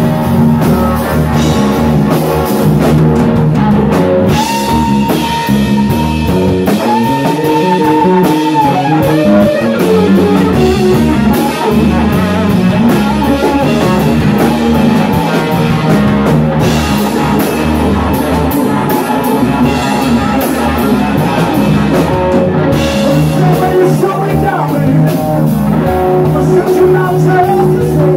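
Live rock band playing loudly: an electric guitar lead over bass guitar and a drum kit, with long held, sustained guitar notes about five and eight seconds in.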